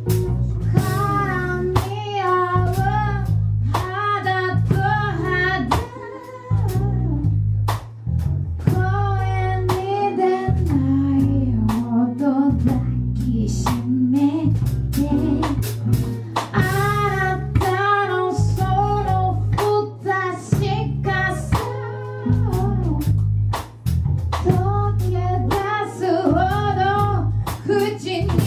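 A song: a high sung lead vocal over guitar, bass and drum kit.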